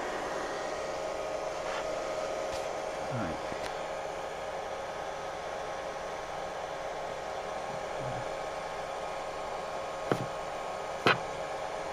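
A steady rushing hiss with a faint hum in it, broken by a few short light clicks.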